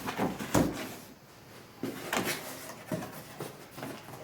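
Cardboard box and packed parts being handled during unboxing: a couple of sharp knocks in the first second, then a run of lighter knocks and rustling from about two seconds in.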